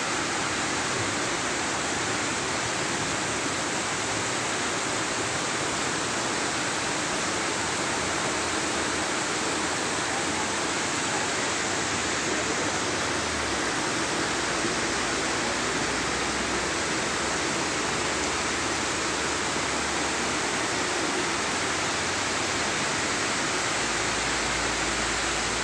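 Steady rushing noise of heavy rain and muddy floodwater running over a street.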